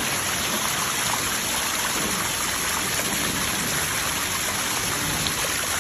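Steady rush of water in heavy flood conditions, an even hiss with no pitch or rhythm.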